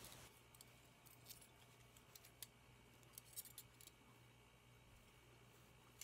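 Near silence with faint, scattered small clicks and rustles from hands handling a small cloth bag.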